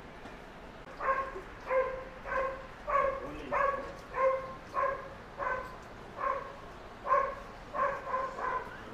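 Dog barking repeatedly, a run of about a dozen short barks at roughly one every half second, starting about a second in.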